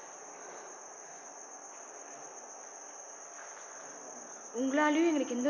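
Crickets chirring in one steady, unbroken high-pitched trill. A person's voice starts loudly near the end.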